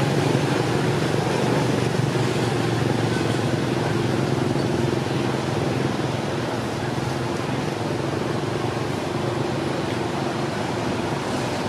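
Steady low drone of a running motor, its pitch holding constant, over a wash of outdoor noise.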